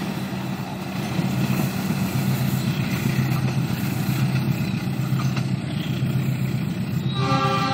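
Diesel train engine running with a steady low drone; about seven seconds in, a train horn begins to sound.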